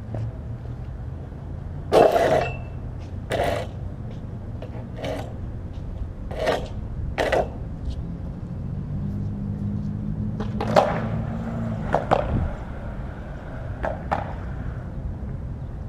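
Skateboard on concrete: a series of sharp clacks as the deck and wheels hit the ground, the loudest about two seconds in, with a stretch of wheels rolling a little past the middle. A steady low rumble runs underneath.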